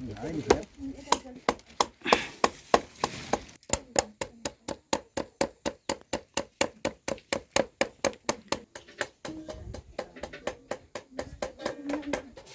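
A knife chopping on a cutting board in rapid, even strokes, about four a second through the middle, mincing momo filling.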